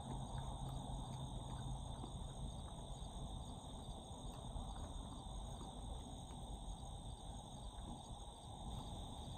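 Insects trilling steadily in a continuous high chorus, over a low rumble and a few faint ticks.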